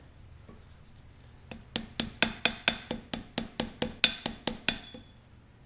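Small hammer tapping a motorcycle fork's dust seal down into the fork tube: a run of quick, light metallic taps, about five a second, that starts about one and a half seconds in and stops about a second before the end.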